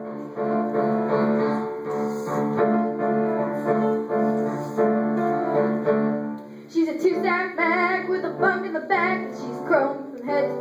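Piano accompaniment playing a steady, evenly pulsed chordal introduction. About two-thirds of the way in, a girl begins singing over it into a microphone.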